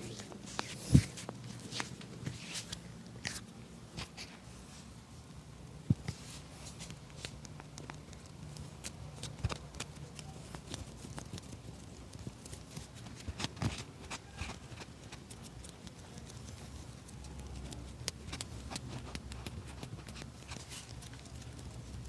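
Hand massage of the head and body: irregular sharp pats, slaps and clicks of hands on skin, the loudest about a second in and again about six seconds in, over a faint low hum.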